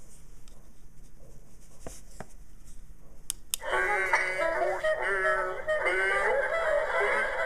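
A few sharp clicks, then about three and a half seconds in the Hallmark Swedish Chef ornament's small built-in speaker starts playing a tinny clip of music with a sung voice.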